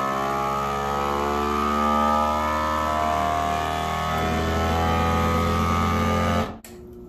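FoodSaver vacuum sealer's pump running, drawing the air out of a bag: a steady motor hum whose pitch wavers slightly, cutting off abruptly near the end.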